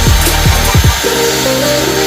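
Background music with quick downward-swooping tones in the first second and then held notes, over a steady high-pitched whine and air hiss from the air duster's BLDC motor.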